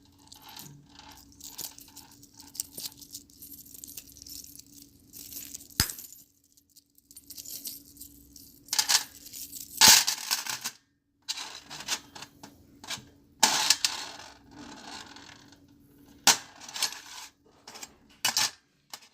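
Small metal objects clattering and rattling onto a metal tray in a series of separate drops, each a sharp clash with a short metallic ring, the loudest about ten seconds in.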